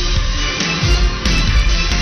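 Loud background music with a heavy bass line.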